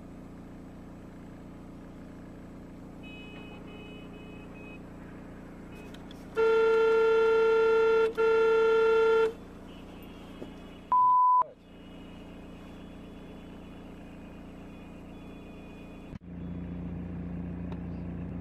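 Car horn honking in city traffic: one long blast and then a shorter one, over steady dashcam road noise. A short high electronic beep follows a couple of seconds later, and near the end the sound cuts to louder steady traffic noise.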